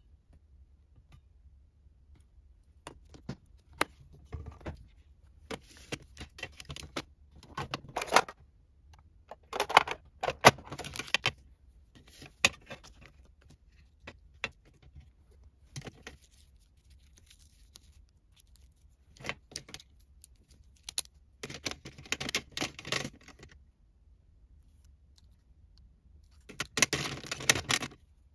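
Pens and stationery handled in a metal tin pencil case: intermittent clicks, taps and short bursts of metallic clattering and rattling, busiest twice, midway and near the end.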